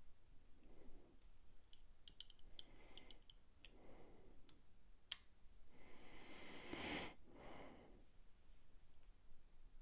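Faint scattered small clicks of metal knife parts and tools being handled, one sharper click about five seconds in. Quiet breathing runs through it, with a heavier breath out near seven seconds.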